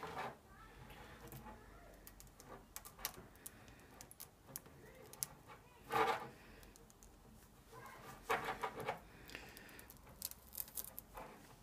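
Faint clinks and rubbing of a metal socket tool, an AN4 hose fitting and braided hose being handled and worked together by hand, with a couple of louder scuffs about halfway and a little later.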